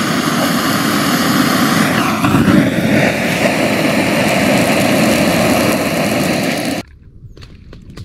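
Handheld gas torch burning with a loud, steady hiss as its flame is held into dry kindling to light a campfire. The hiss stops suddenly near the end.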